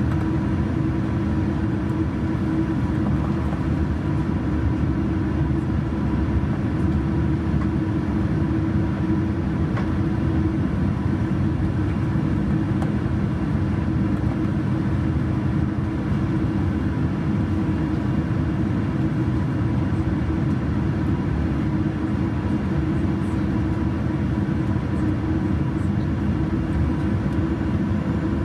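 Steady cabin noise inside a Boeing 787-9 airliner: an even low rumble with a faint steady whine above it, unchanging throughout.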